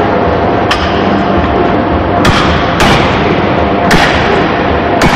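Forging hammer striking a red-hot anchor chain link: five heavy blows at uneven intervals, over a loud, steady din of running machinery.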